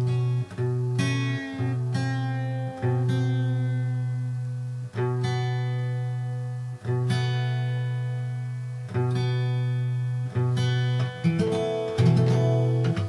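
Acoustic guitar's fifth and second strings plucked in turn and left to ring, about once every one to two seconds, as the second string is tuned down by ear from B to A to match the fifth. Near the end several strings sound together.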